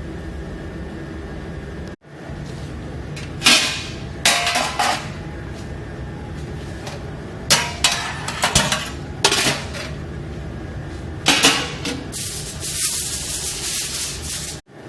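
Dishes and food containers clattering and knocking as they are handled, in several short bursts, with a rustling stretch near the end, over a steady background hum.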